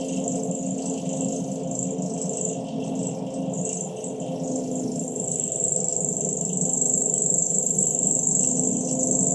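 Drill running steadily with a continuous high-pitched motor buzz, growing a little louder about halfway through.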